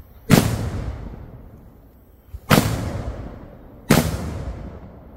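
Fireworks going off: three loud blasts within about four seconds, each followed by a long rumbling echo that fades away.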